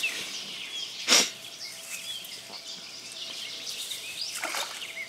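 Songbirds chirping, with one brief, loud whoosh about a second in and a softer one a little after four seconds.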